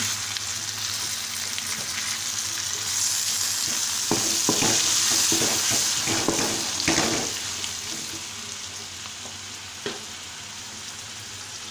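Sliced bitter gourd frying in a pan of hot oil and spices, sizzling steadily. The sizzle swells in the middle, with a few knocks and scrapes of a utensil against the pan, then eases off toward the end.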